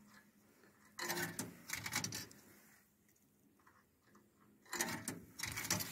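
Coins fed into a vending machine's coin slot, rattling and clicking down through the coin mechanism in two bursts, about a second in and again near the end.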